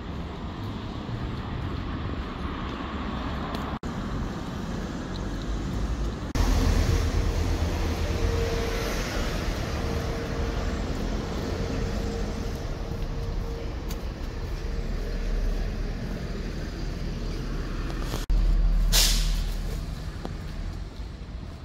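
Road traffic on a town street: vehicles passing steadily, with a short hiss near the end.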